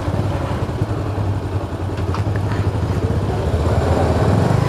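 Motorcycle engines running at low speed, a steady low rumble as the bikes roll slowly and pull up, with a slight swell near the end.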